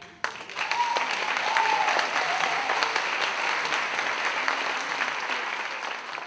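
Theatre audience applauding, starting suddenly just after the music ends as the dance piece finishes.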